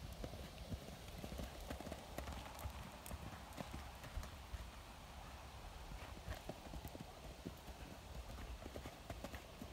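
Faint hoofbeats of a ridden bay quarter horse gelding loping on grass and dirt.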